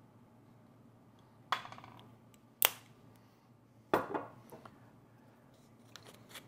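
Kitchen clinks: a metal measuring spoon knocking against a small bowl and glass sauce bottles handled and set down on the counter. Three sharp clinks about a second apart, the first and last ringing briefly, then a few lighter taps near the end.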